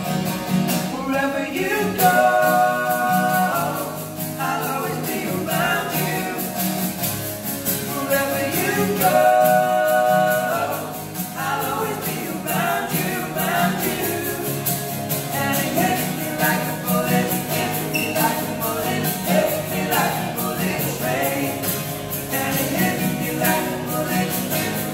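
Live acoustic performance: two acoustic guitars strummed while three male voices sing in harmony, one through a handheld microphone. Long held notes come about two seconds in and again about nine seconds in.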